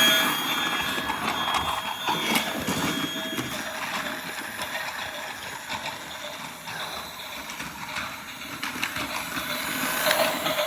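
Toy train running along its track: a steady motor whir with scattered clicks, and a thin steady whine for the first few seconds.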